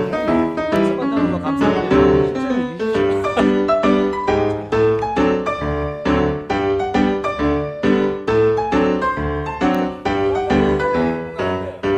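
Background music: piano with struck notes and chords at a steady pace.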